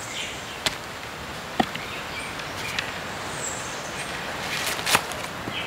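Steady forest ambience with a few short, high, falling chirps from birds or insects. Over it come four sharp clicks, the last near the end the loudest, as snake plant fibre is handled and twisted by hand into bowstring cordage.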